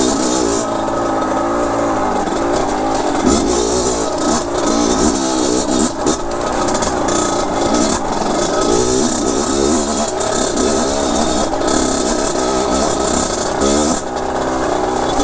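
2007 Kawasaki KX100's 99cc single-cylinder two-stroke engine revving up and down over and over, the throttle worked repeatedly as the dirt bike is ridden through a creek section.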